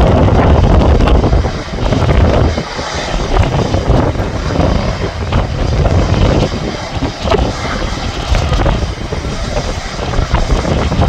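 Strong gusty wind buffeting the microphone: a loud, rumbling rush that surges and dips with the gusts, easing somewhat after the first couple of seconds and building again near the end.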